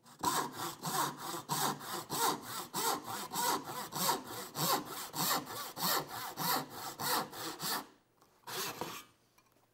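Japanese-style pull saw cutting a starter kerf into a wooden miter box fence, with quick, even strokes at about three a second that stop about eight seconds in.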